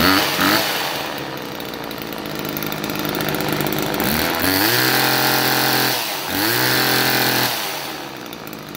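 Homelite XL chainsaw's small two-stroke engine running at idle, with two revs about halfway through, each held high for a second or so before dropping back to idle. It runs well.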